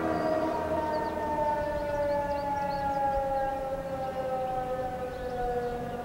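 Federal Signal Model 2 rooftop siren winding down, its two-tone chord sliding slowly lower in pitch and fading. This unit sounds lower-pitched than a normal Model 2.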